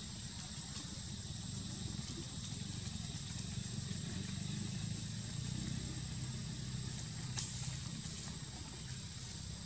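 Outdoor background noise: a steady low rumble under a thin, steady high-pitched tone. A sharp click comes about seven seconds in, followed by a few brief high rustles.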